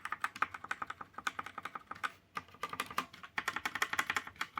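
Rapid typing on a Cosmic Byte mechanical keyboard: a fast run of crisp key clicks, pausing briefly twice.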